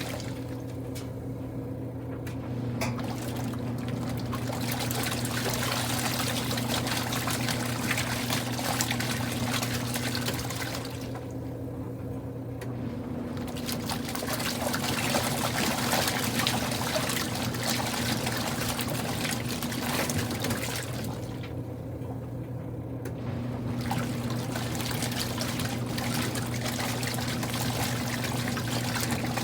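Water churning and running in the tub of a Kuppet portable washing machine over a steady low hum. The water sound stops for a moment about every ten seconds, then resumes.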